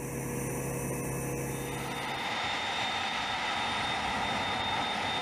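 A steady low hum, then about two seconds in the steady rush and high whine of a C-5 Galaxy's four turbofan engines as the big transport rolls along the runway.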